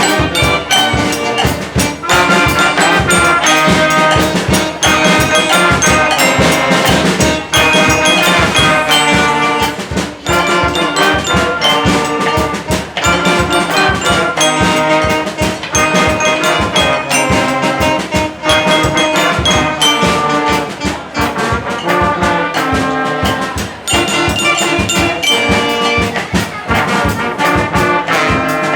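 Children's school band playing a loud piece on brass instruments, trumpets and trombones, over a steady, driving drum beat.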